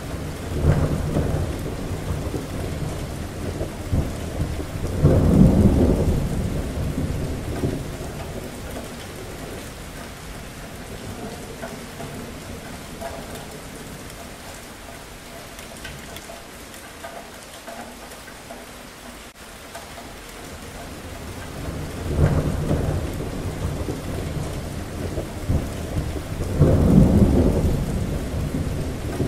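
Thunderstorm: steady rain throughout with rolling thunder. One long deep rumble starts right away and swells twice; a second starts about two-thirds of the way through and swells twice toward the end.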